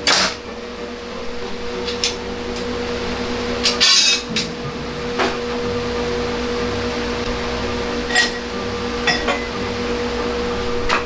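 Metal pieces clinking and knocking as cut aluminum stock is handled, several sharp clinks with the busiest one about four seconds in, over a steady electric hum.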